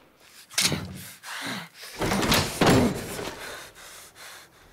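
Old wooden door being unlatched and pulled open: a few heavy knocks and scrapes with a short creak.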